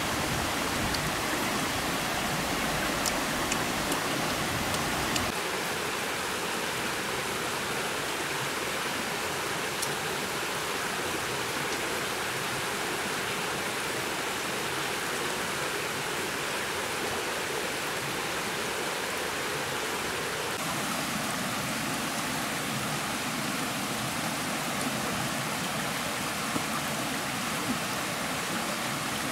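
Steady rushing hiss of a small, shallow forest stream running over rocks, with a few faint clicks in the first few seconds. The deeper part of the rush drops away about five seconds in.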